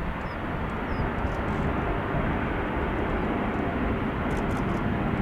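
Jet airliner engines: a steady rushing noise that swells slightly about two seconds in and then holds.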